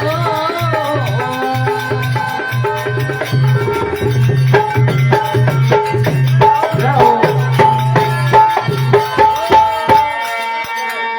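Instrumental break in a Rajasthani devotional bhajan: a hand drum beats a steady rhythm under sustained melody notes. The drumming stops near the end, leaving the held notes ringing.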